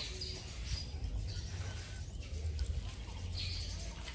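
Birds chirping in short, high calls over a steady low rumble of wind noise.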